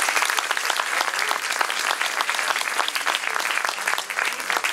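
Theatre audience applauding: many hands clapping together in a dense, steady patter.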